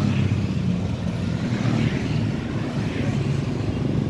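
Steady drone of a motor vehicle engine running in street traffic, with a constant low hum over road noise.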